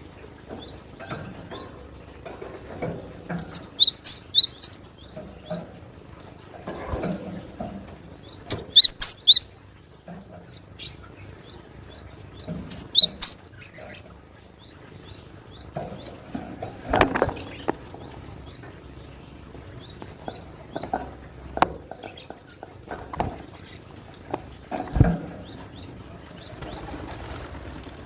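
Cinereous tit calling with repeated short, high chirps, broken by three loud bursts of rapid, sharp notes about four, nine and thirteen seconds in. A couple of sharp knocks come later.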